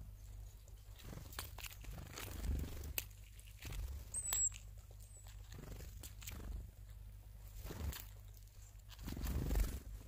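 Tits at a bird feeder pecking and tapping at seeds: a scattered run of light clicks and cracks, with one short high call about four seconds in. Dull low thumps come through as well, the loudest near the end.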